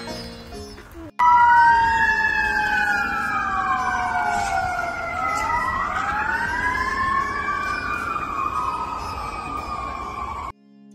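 Several sirens wailing together, each tone sliding slowly up and down out of step with the others so that the pitches cross.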